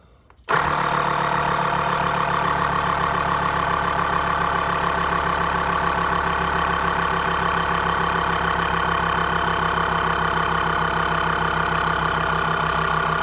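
Small electric air compressor switching on about half a second in and running steadily with a rapid rattle, pumping air through its hose to inflate a patched bicycle inner tube.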